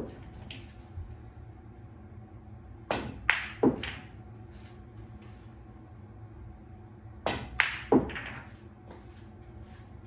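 Two pool shots about four seconds apart, each a quick run of three or four sharp clacks: the cue tip striking the cue ball, balls knocking together and a ball dropping into a pocket. A few faint ticks of rolling balls come between the shots.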